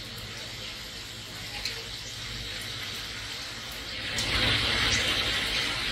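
Steady rain falling with an even hiss, which swells louder about four seconds in.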